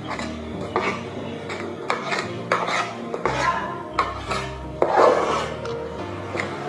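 Spoon scraping and stirring thick chocolate cake batter in a metal bowl: irregular rasping strokes against the bowl's sides, the loudest about five seconds in.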